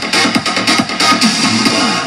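Electronic dance track played loud through Pride Solo Mini 16 cm midrange speakers for a sound-pressure-level measurement, reading about 92 dB on the meter. The speakers are high-passed at 125 Hz, so there is little deep bass. Falling pitch sweeps and a quick pulse repeat through the music.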